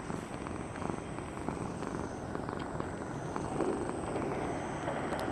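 Cat purring steadily.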